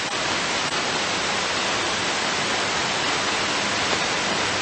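Steady hiss of radio static from an airband receiver on an air traffic control frequency, with no one transmitting.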